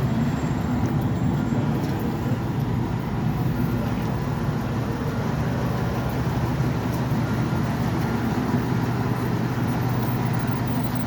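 Steady hum of a large idling engine, consistent with a fire engine's diesel running at the scene.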